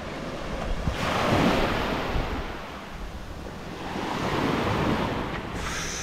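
Small waves washing up onto a sandy beach: two swells of surf, the first about a second in and the second about four seconds in.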